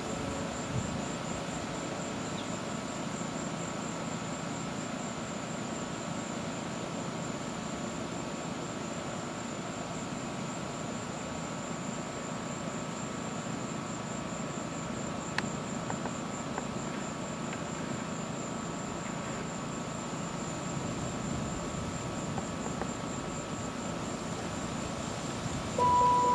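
Steady outdoor ambience: a continuous high, evenly pulsing insect trill over a low hum of distant traffic. Near the end a louder tone briefly cuts in.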